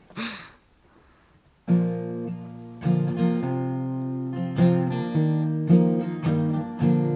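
Acoustic guitar strumming chords, starting about a second and a half in and re-struck roughly once a second: the intro to a song.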